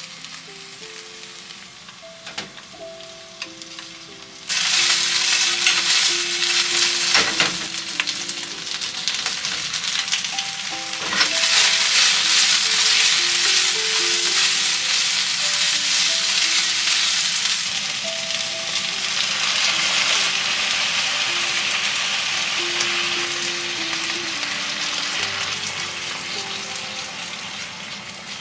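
Food sizzling in hot oil in a frying pan. The sizzle starts suddenly about four seconds in, as food goes into the pan, grows louder around eleven seconds, then slowly dies down.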